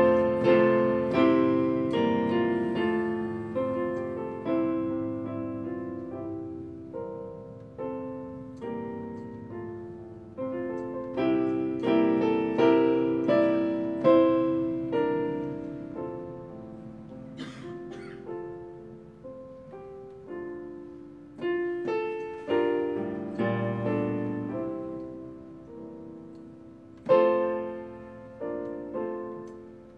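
Solo digital piano playing chords and melody notes, each struck and left to ring out and fade.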